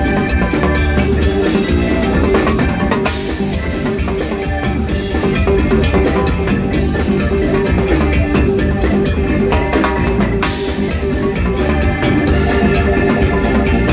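Live Latin rock band playing, with busy drums and percussion hits over a steady groove.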